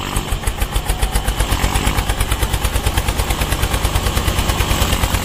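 Homemade mini tractor's engine running with a rapid, even chug of about eight thumps a second.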